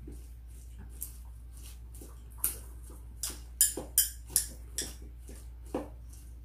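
Chopsticks clicking and scraping against a bowl while stirring chicken into rice: a string of about eight sharp clicks, most of them in the middle few seconds.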